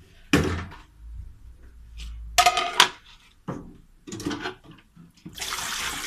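Plastic colander and basins knocking and clattering as they are handled and set down, a few separate knocks, one with a brief ringing. About five seconds in, water starts pouring with a steady rush.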